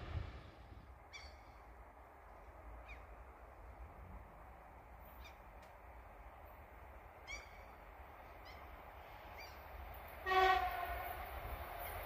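An ET2M electric train, still far off down the line, gives one short horn blast about ten seconds in, the loudest sound here. Before it there is only a faint low rumble and a few short bird calls.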